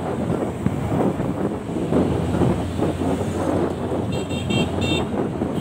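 Wind buffeting the microphone and road noise while riding a motorcycle in traffic, with a high-pitched vehicle horn giving a quick string of short beeps about four seconds in.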